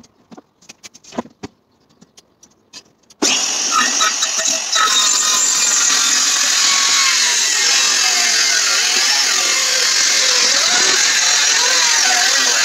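A few light knocks, then about three seconds in a Makita cordless circular saw starts up abruptly, falters briefly, and cuts steadily through a pine cabinet top, its pitch wavering as the blade takes the load.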